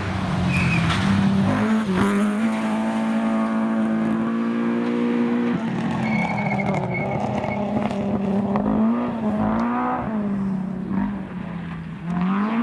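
Rally car engine running hard, its pitch mostly held steady and dipping briefly a few times.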